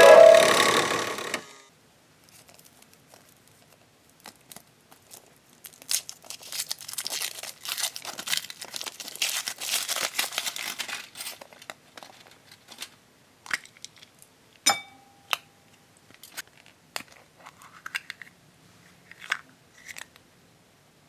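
Foil wrapper crinkling and tearing as a Choco Egg chocolate egg is unwrapped, densest for about five seconds in the middle, then scattered sharp clicks and taps. A short stretch of background music ends in the first two seconds.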